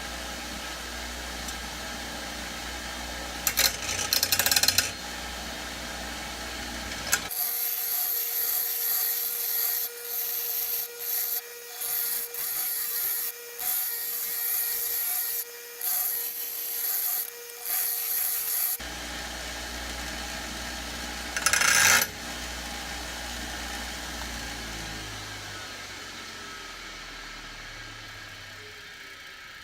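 A motor-driven grinding wheel runs with a steady hum while a steel knife blank is pressed against it in repeated passes, each pass a harsh hiss with short breaks between. Near the end the wheel's motor winds down, its hum falling in pitch and fading.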